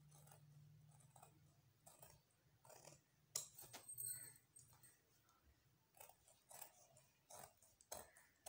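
Faint rustling and soft clicks of cloth being handled and smoothed flat by hand, with a faint low hum for the first couple of seconds; near the end, scissors start snipping into the fabric.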